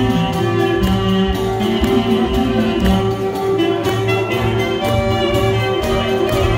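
Live Greek folk music from a small band, with lute and frame drum among the instruments, playing a dance tune with a steady beat.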